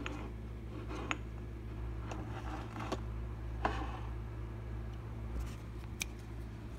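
A few light clicks and rustles over a steady low hum.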